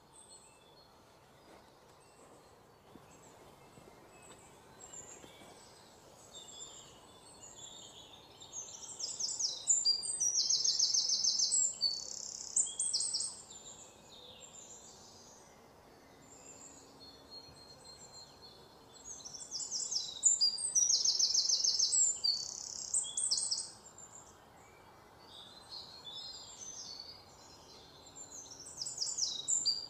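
Birds chirping, with two louder spells of rapid, high-pitched trills, each lasting about four seconds.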